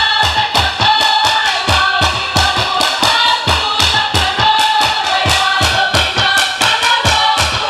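A group of female voices singing together over a fast, steady drumbeat: Polynesian group song accompanying dance.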